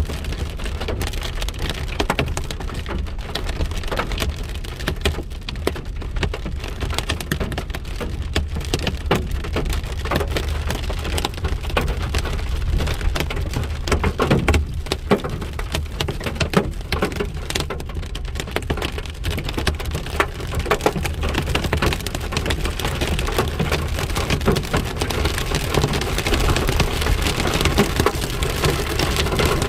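Rain and hail falling: a steady hiss of rain dotted with many sharp ticks of hailstones striking.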